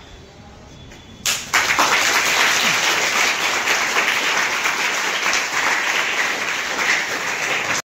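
A roomful of schoolchildren applauding, dense steady clapping that starts suddenly about a second in and cuts off abruptly at the end.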